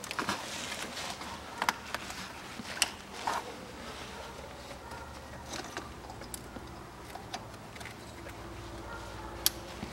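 Scattered light clicks and handling noises as plastic wiring connectors are pushed onto the ignition coils of a Toyota 1MZ-FE V6 engine.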